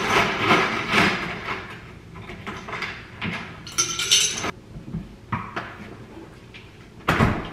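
Ice cubes clinking into a drinking glass at an open refrigerator, in a few bursts of clatter, then the refrigerator door thudding shut near the end.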